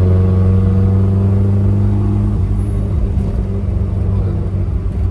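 Turbocharged Mazda Miata engine running under way, a steady drone. About two and a half seconds in it turns to a rougher, grainier rumble.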